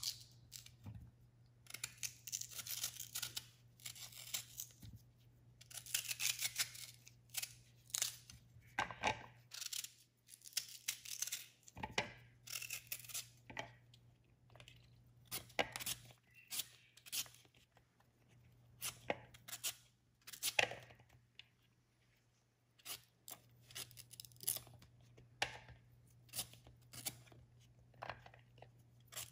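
Kitchen knife paring and slicing raw green mangoes: irregular crisp scraping and cutting strokes through the firm flesh, some in quick runs of several strokes and others spaced apart.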